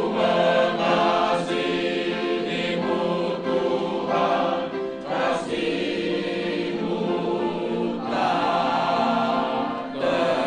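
Mixed church choir of men and women singing a slow hymn, holding long notes that change every second or two.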